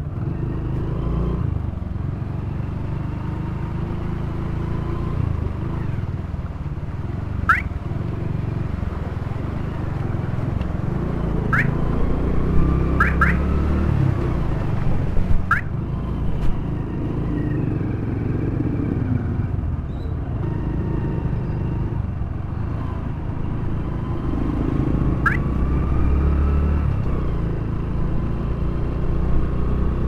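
Small motorcycle's engine running steadily as it is ridden along a wet road. Several short, high, rising chirps cut in over it now and then.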